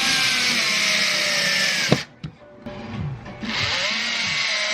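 Power drill driving screws into furniture panels: two runs of about two seconds each with a short break between, the motor's whine dropping in pitch as each screw draws tight.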